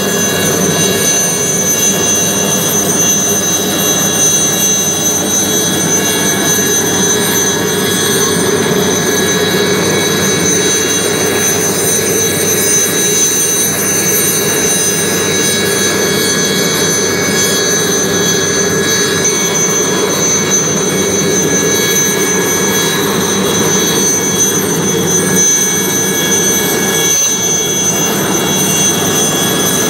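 Helicopter's turbine engine and rotor running steadily on the ground: a steady high whine over a lower drone.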